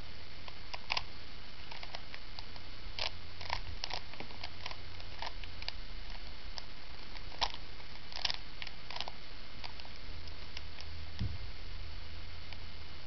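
Plastic Rubik's Cube being turned by hand: irregular clicks and clacks of its layers rotating, some in quick clusters, over a steady low hum and hiss.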